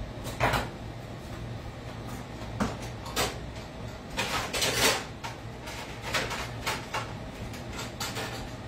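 Someone moving things about in a kitchen: a string of scattered knocks and clunks, with a louder rattling cluster about four seconds in.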